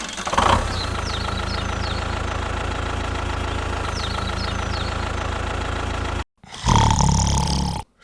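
Engine idling steadily with an even, fast chug. It cuts off suddenly about six seconds in, then a short, louder stretch of engine sound follows and cuts off again near the end.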